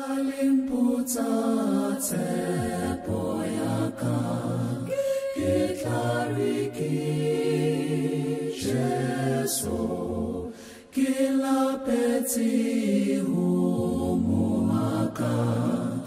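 Small mixed group of men's and women's voices singing a song in harmony, unaccompanied, with a brief break about eleven seconds in.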